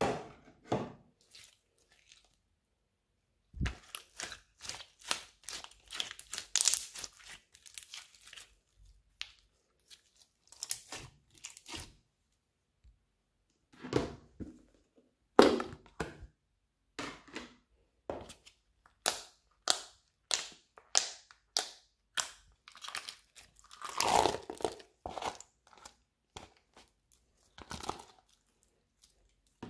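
Slime being handled and pressed in a plastic tub: irregular bursts of sticky crackling pops and squelches, with short pauses between.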